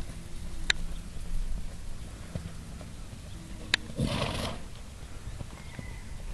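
Horse trotting on a sand arena under a rider: soft hoofbeats on the sand. About four seconds in, a sharp click is followed by a brief breathy rush.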